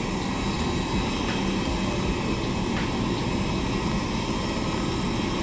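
Steady, even drone of a passenger plane's engines and airflow.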